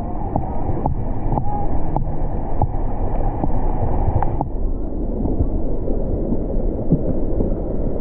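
Steady rush of falling water at a waterfall, with wind buffeting the microphone. A run of light clicks comes over the first half, and the higher part of the rush drops away about halfway through.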